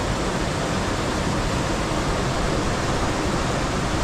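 Steady rush of water let into a traditional water mill (gharat), running down its channel onto the horizontal wheel below. There is no grinding: the millstone has not started turning.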